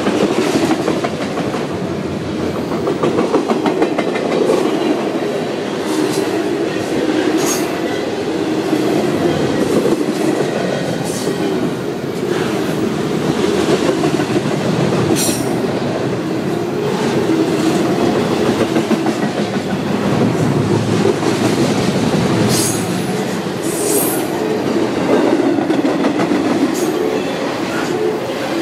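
Union Pacific freight train cars rolling past, a steady loud rumble and clatter of wheels on the rails. A few brief high squeals from the wheels rise over it now and then.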